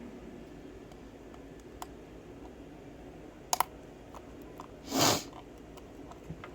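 Single-pin picking of a 5-pin Presto padlock: scattered small metallic clicks from the pick and tension wrench working the pins, with a sharper double click about three and a half seconds in. A short, loud rush of hiss comes about five seconds in.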